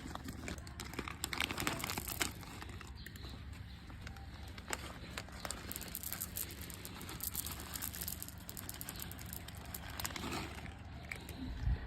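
Irregular rustling and crinkling with many scattered small clicks and crackles.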